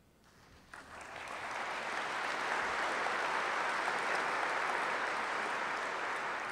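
Audience applauding, starting about a second in and quickly building to steady, sustained clapping.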